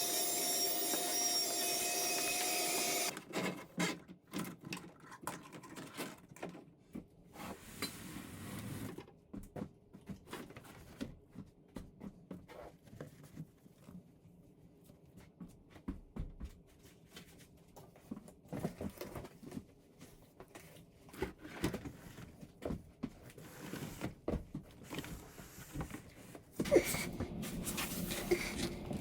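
A steady hum with a held tone for about the first three seconds, then scattered light clicks and knocks of things being handled.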